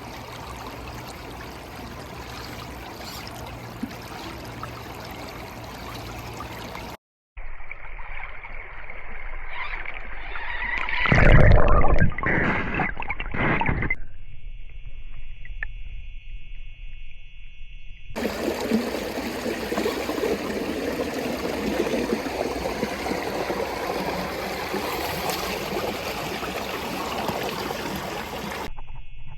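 Creek water running and trickling, in several abruptly cut segments, with a brief loud rush of noise about eleven seconds in.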